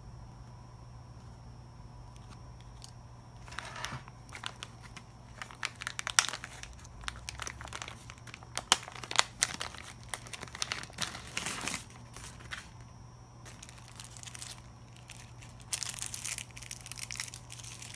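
Clear plastic bag and thin plastic wrapping crinkling and rustling in irregular crackly bursts as sunglasses are unwrapped by hand. The crinkling starts a few seconds in, pauses briefly, and picks up again near the end, over a faint steady hum.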